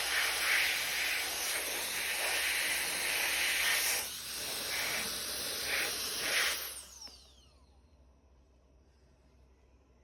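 High-speed electric turbo fan blowing with a loud rushing hiss, then spinning down about seven seconds in, its motor whine falling away.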